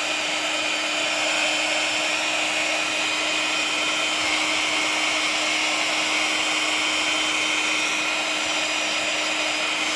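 Craft embossing heat gun blowing steadily: a fan whir with a low steady hum, melting a layer of extra-thick embossing powder.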